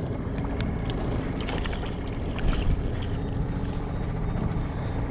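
A small boat's motor running steadily with a low hum.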